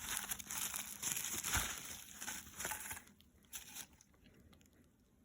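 Packaging crinkling and rustling as it is handled while a model train car is unwrapped, with small crackles; it stops about three seconds in, with a couple of brief rustles after.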